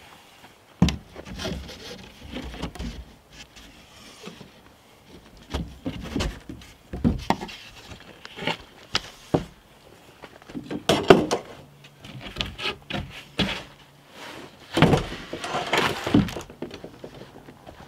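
A plywood panel being worked loose, lifted off and laid down against wood: irregular knocks, scrapes and thumps of wood on wood, with the loudest bumps and scrapes about two-thirds of the way through and near the end.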